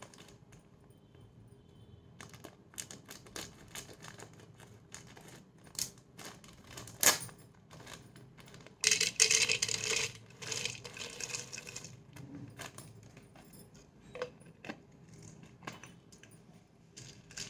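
Dried cardamom pods handled and poured from a packet into a plastic spice jar: scattered light clicks and rattles of pods hitting plastic, with a longer rattling rush about nine seconds in as the bulk of them pours in.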